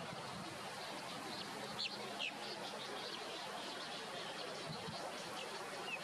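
Faint high bird chirps over a steady outdoor background, with a couple of brighter short notes about two seconds in and another near the end.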